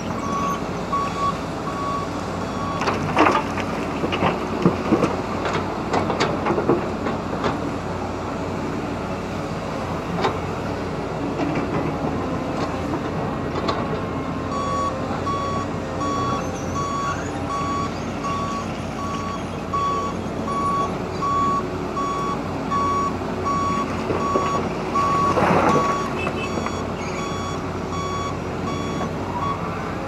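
Caterpillar 320D excavator's diesel engine running under load, with loud clatters of rock and soil from the bucket a few seconds in and again near the end. A back-up alarm beeps briefly at the start and again steadily through the second half.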